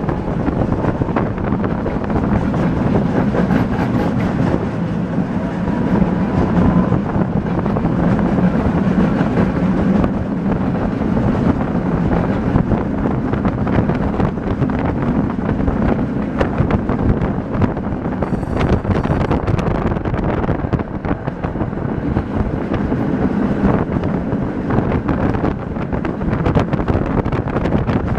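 Tram running on its rails, heard from inside the car: a steady low rumble and drone with frequent short clicks and rattles.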